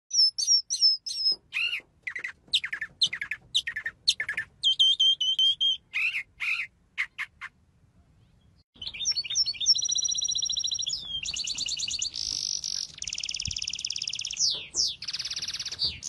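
A mockingbird singing: a string of varied, high phrases, each note type repeated several times. After a short pause about halfway, a small finch takes over with a fast, nearly continuous run of trills and buzzy twitters.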